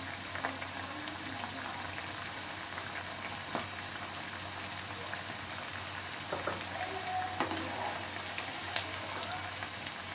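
Buckwheat-flour-coated potato pieces deep-frying in hot oil: a steady sizzle with scattered pops and crackles.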